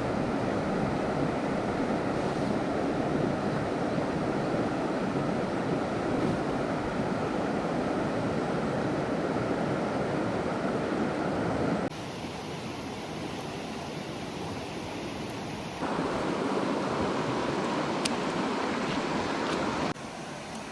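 Mountain stream water rushing, a steady hiss of running water. It changes abruptly three times, quieter about twelve seconds in, louder again about sixteen seconds in, and quieter near the end, as separate takes cut together.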